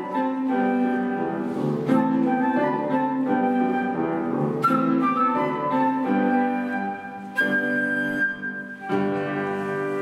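Flute and Estonia grand piano playing together: a child flautist with piano accompaniment in a classical piece, the notes moving quickly at first and giving way to longer held notes in the last few seconds.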